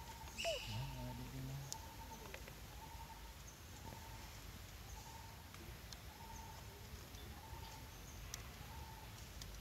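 Quiet woodland ambience with a short piping note repeating evenly about three times every two seconds, a few faint clicks, and a brief low hum in the first two seconds.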